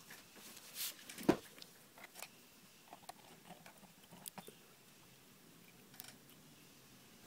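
Small fly-tying scissors snipping tying thread at the head of a fly: a few faint clicks and snips, the loudest about a second in.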